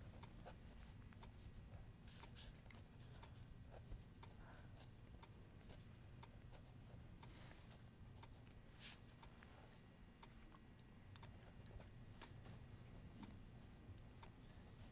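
Near silence: faint pencil scratching on paper and scattered small ticks over a low steady hum.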